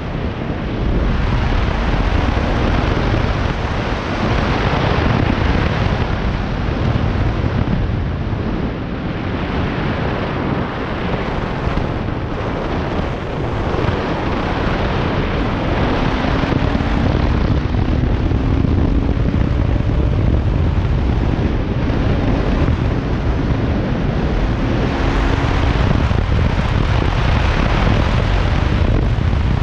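Bajaj Pulsar RS200 BS3 motorcycle's single-cylinder engine running while being ridden, its pitch rising and falling a little with speed, under heavy wind noise buffeting the microphone.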